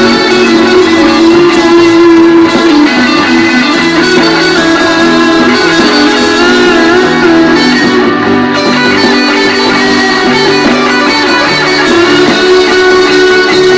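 Fender American Standard Stratocaster HSS electric guitar played through an amplifier: sustained notes and chords, with bent, wavering notes in the middle.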